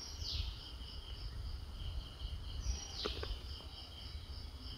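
Insects, crickets or similar, trilling steadily as a high, evenly pulsing chirr. Two short falling chirps come just after the start and about three seconds in, over a low rumble.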